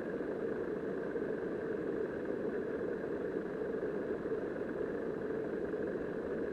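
Steady, muffled rush of river current heard underwater, an even noise without breaks or distinct events.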